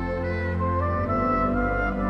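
Gentle ambient chill-out music: sustained chords held under a melody that steps upward about a second in.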